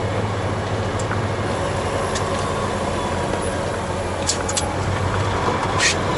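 Heavy semi truck's diesel engine running steadily under way, with road noise inside the cab. A few light clicks or rattles come through, the sharpest about six seconds in.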